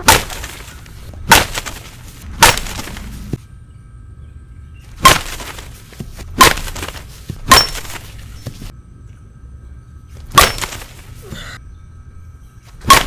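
Composite slowpitch softball bats striking 52/300 softballs: about eight sharp cracks, each with a short ring, one to three seconds apart.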